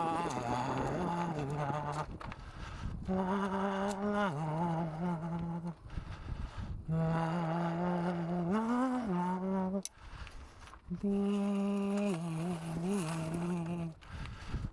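A person humming a slow tune in long held notes, in about four phrases with short breaks between them.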